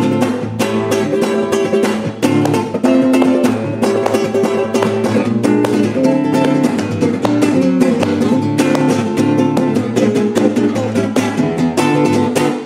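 Acoustic guitar played solo at a fast pace, with rapid strummed chords and picked notes in a steady, driving rhythm, stopping abruptly near the end.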